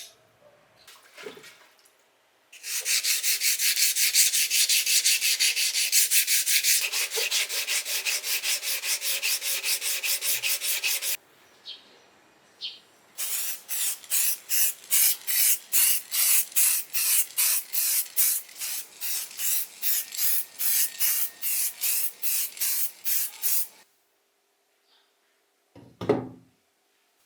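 Hand sanding of rust off a metal bench grinder part: rhythmic back-and-forth rubbing strokes, about three a second, in two long bouts with a short pause between. A single knock near the end.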